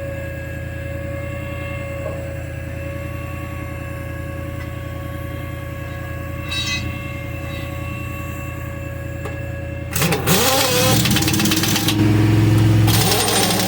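A motor runs with a steady hum. About ten seconds in, a much louder, harsh mechanical noise starts, its pitch wavering up and down.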